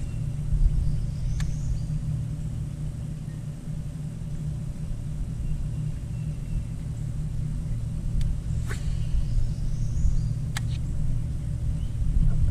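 Steady low rumble with a faint, even hum over it, and a few light sharp clicks: one about a second in and two more after eight and ten seconds.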